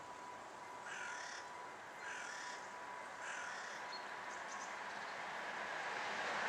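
A bird calls three times, each call short and about a second apart. Under the calls, the sound of an approaching train grows louder near the end.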